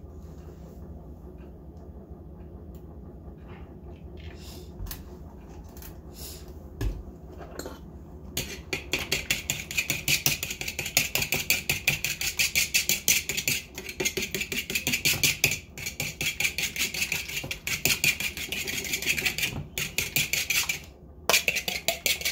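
A fork beating egg and buttermilk in a wooden bowl: a fast, even clatter of about five or six strokes a second, with the tines tapping and scraping against the bowl. It starts after a quieter spell of a few light clicks and pauses briefly near the end.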